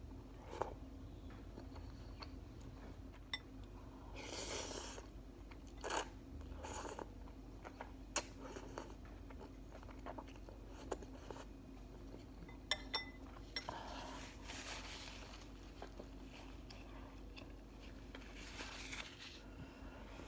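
Close-up eating sounds of ramen noodles: several wet slurps of noodles being sucked in, with chewing between them and sharp clicks of a metal fork against the bowl.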